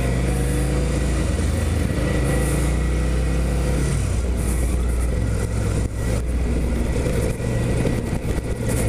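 Ducati Scrambler Icon's air-cooled L-twin engine pulling the bike along, rising in pitch for the first few seconds, then easing off about four seconds in and running on more evenly.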